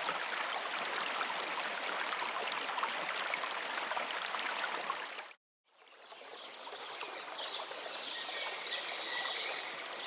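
A small forest river rushing over rocks with a steady hiss that cuts off abruptly about five seconds in. Quieter forest ambience follows, with faint high bird calls.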